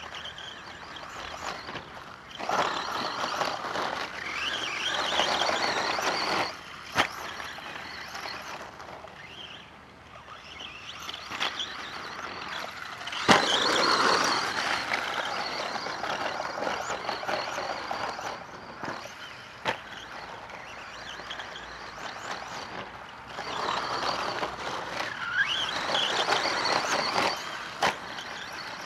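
Electric radio-controlled truck driving on a dirt track: its motor whine rises and falls in pitch with the tyres scrabbling on dirt, loudest in three passes. A few sharp knocks stand out.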